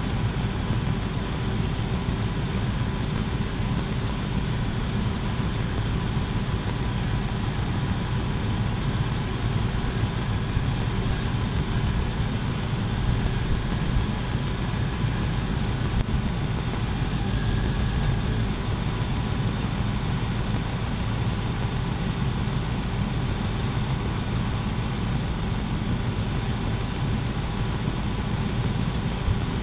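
Steady machine drone, even and unbroken, with a thin constant high whine above it.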